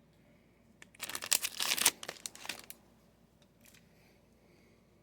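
Foil wrapper of a trading-card pack crinkling and tearing as it is opened, a loud burst of about two seconds starting about a second in, with a few fainter rustles after it.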